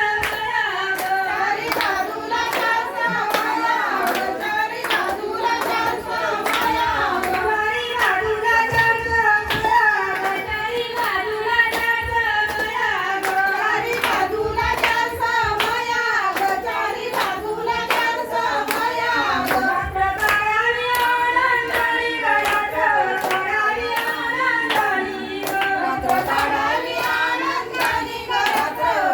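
Women singing a traditional Marathi Ganpati song, with hand clapping keeping a steady beat throughout.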